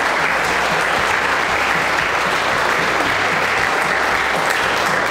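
A crowd of guests applauding, a dense, steady clatter of many hands clapping.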